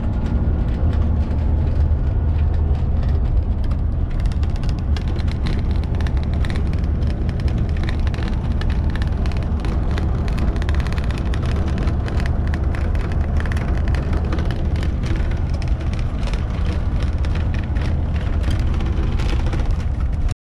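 Van driving on the road: a steady, loud engine drone with tyre and road noise.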